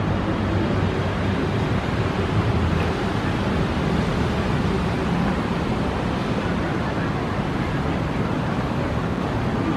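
Steady rushing noise of wind buffeting the microphone, over a low outdoor rumble.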